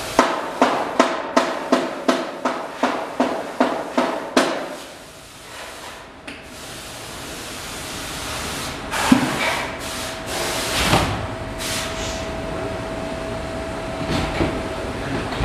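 Motorcycle front wheel spinning on an axle, making a regular tick about three times a second that stops about four and a half seconds in. Later come a few separate knocks and a faint steady hum as the wheel is handled and turned again.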